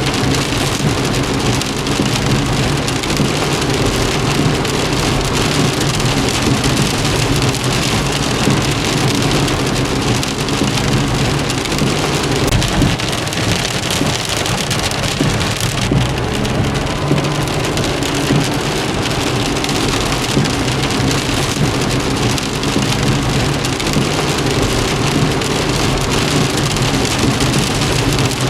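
Steady rain on a car, a dense even patter, over a steady low hum underneath.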